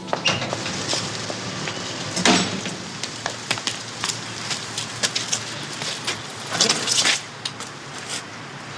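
Steady outdoor noise with irregular clicks and scuffs of footsteps and a bicycle being handled on paving. It is louder about two seconds in and again around seven seconds.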